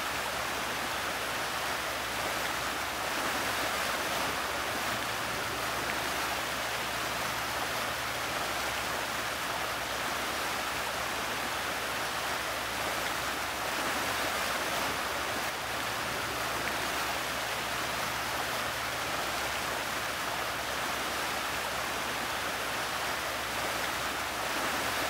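Muddy floodwater rushing steadily, a continuous noise of fast-moving water.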